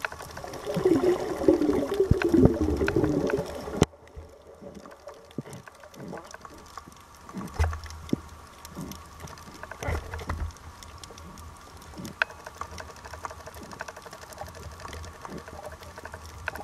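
Underwater sound heard through a camera housing: loud bubbling for about four seconds that cuts off suddenly, then quieter water noise with scattered clicks and a few low thumps.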